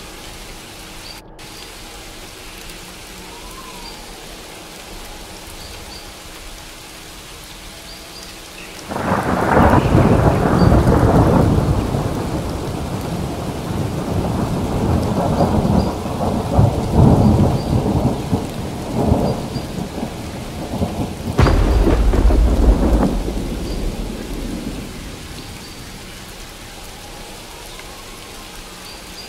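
Steady rain with thunder. A long roll of thunder breaks about nine seconds in and rumbles on unevenly for around ten seconds. A second, sharper clap follows and fades away a few seconds later.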